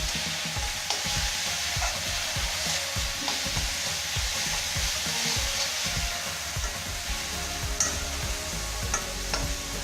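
Ginger, garlic, tomato and green chilli paste sizzling in hot oil in a kadhai as it is stirred and fried, with a steady hiss and frequent soft knocks and a few sharp clicks of the spatula against the pan.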